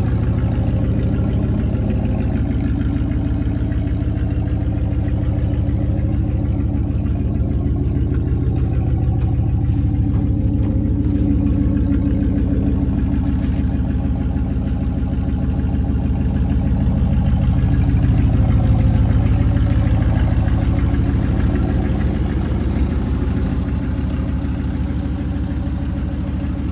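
Dodge Ram pickup engine running at idle with no muffler, a loud, deep, steady exhaust note. It swells a little about two-thirds of the way through, then settles again.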